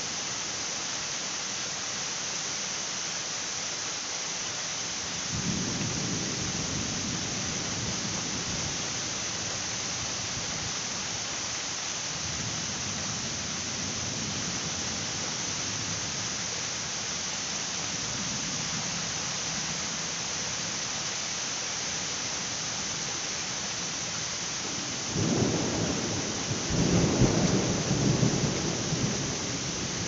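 Steady heavy rain hissing, with thunder: a rumble that starts suddenly about five seconds in, fainter rolling rumbles in the middle, and a louder peal near the end that rumbles for several seconds.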